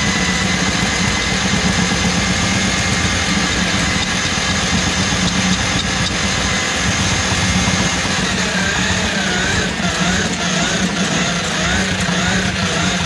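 Electric drum drain auger running steadily with a loud motor hum as its spinning drum feeds the cable into a kitchen sink drain plugged with grease.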